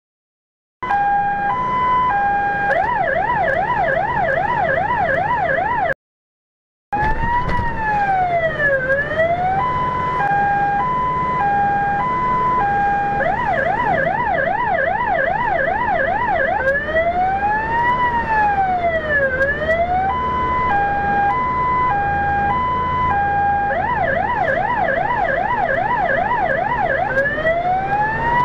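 Fire engine's electronic siren heard from inside the cab. It steps through its modes in turn: a two-tone hi-lo, a fast warbling yelp and a slow rising-and-falling wail, over the truck's engine running underneath. The sound cuts out for about a second roughly six seconds in.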